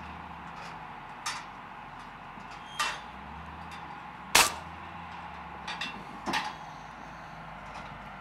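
Benjamin Discovery .22 pellet rifle being handled and fired: a few light clicks and knocks, and one sharp, loud crack about four seconds in.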